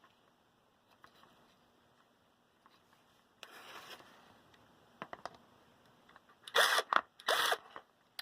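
Fan parts being handled during disassembly: a soft rustle, a few small clicks, then two short loud rasping scrapes near the end.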